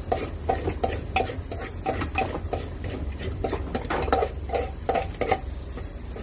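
Metal spoon stirring and scraping food in a frying pan, with irregular clinks against the pan and a light sizzle of frying. A low steady hum runs underneath.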